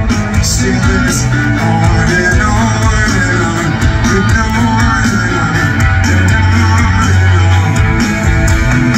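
Rock band playing live and loud: electric guitars over bass and drums, heard from the audience at a large outdoor concert.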